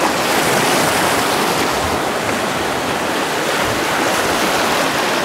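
Fast, broken river water rushing steadily around a small boat running a rapid.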